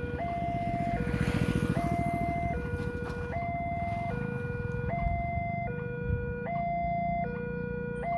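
Electronic railway level-crossing warning alarm sounding, a steady two-tone alternation of a lower and a higher tone, each held about 0.8 s. A low rumble runs underneath, strongest about a second in.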